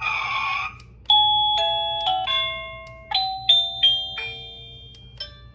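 BISTEE plug-in wireless door chime receiver playing one of its built-in ring tones. A short, noisy burst comes in the first second. Then comes an electronic chime melody of about eight stepped notes, each ringing and fading.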